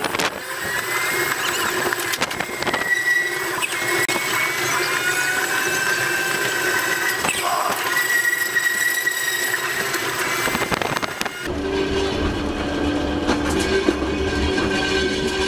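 Volk's Electric Railway carriage running on its track, its steel wheels squealing in long, wavering high-pitched tones over a steady rattle of running noise. Near the end the squeal stops abruptly and gives way to a steadier lower hum with a low rumble.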